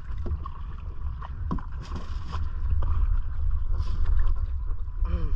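Wind rumbling on the microphone over water lapping at the hull of a small outrigger canoe, with a few short splashes. It grows louder about three seconds in, as a hand plunges into the water beside the boat and splashes.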